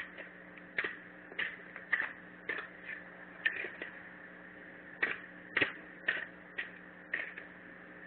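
A hoe chopping into soil: short, dull strikes, irregular, about one or two a second, over a steady faint hum.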